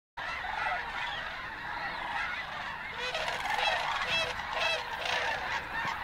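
A large mixed flock of snow geese and sandhill cranes calling: a dense chorus of overlapping honks. From about three seconds in, single louder honks stand out about twice a second.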